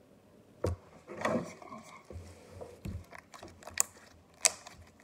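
Slime being stretched and squeezed by hand, giving several short clicks and pops, the two sharpest near the end.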